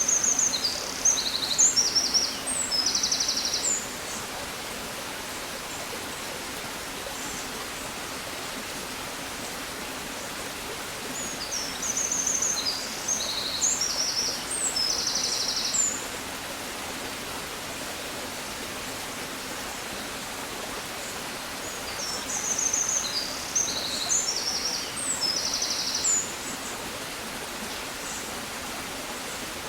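A songbird sings the same high, chirpy phrase of about four seconds three times, roughly ten seconds apart, each phrase ending in a fast trill. Underneath runs a steady rushing hiss, like a distant stream.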